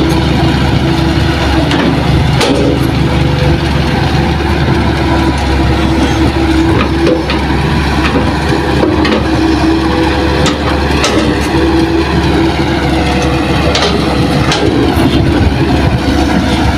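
Hitachi hydraulic excavator running under load while digging and loading, its diesel engine steady with a hydraulic tone that swells and fades as it works, and a few sharp knocks.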